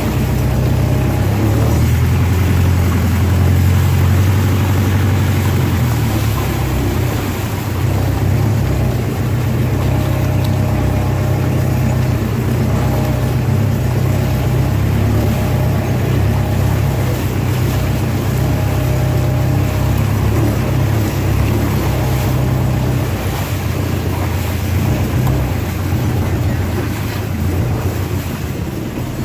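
A vehicle engine running steadily: a low, even drone with a rushing noise over it.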